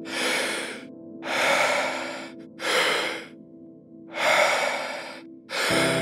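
Wim Hof method power breathing: a person breathing deeply in and out at a steady pace, five hissing breath sounds of about a second each, over ambient music with sustained tones. A lower note comes into the music near the end.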